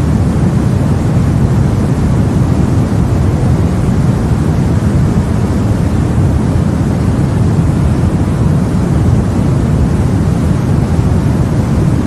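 Steady sleep-aid noise: a deep, even hiss with most of its energy in the low range, unchanging throughout.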